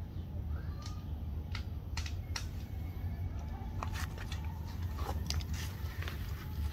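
Steady low rumble of street background, with a scattered run of short sharp clicks and ticks from about a second in.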